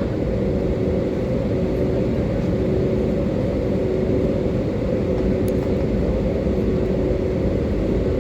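Airbus A320neo cabin noise while taxiing: a steady engine and airflow drone with a steady hum running through it.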